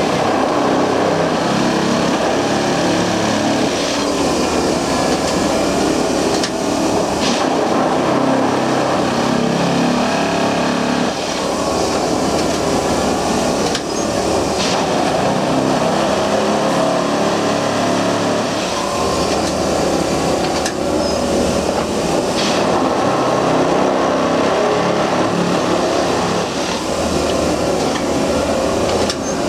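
An Austrian-built multiple tie tamper working on ballasted track, its engine and hydraulics running loud and steady, with the pitch of the machinery shifting every few seconds. A few sharp knocks stand out, about seven, fourteen and twenty-two seconds in.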